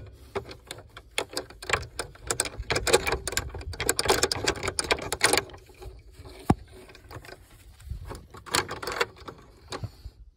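Bursts of rapid, evenly spaced metallic clicking from a side-by-side's winch as its worn, broken steel cable, twisted up inside, is worked out past the rollers. A single sharp metallic knock comes about six and a half seconds in.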